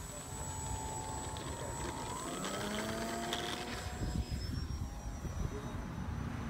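Radio-controlled model airplane's motor and propeller whining as it throttles up for takeoff, the pitch stepping up about two seconds in as the plane rolls along the ground and lifts off.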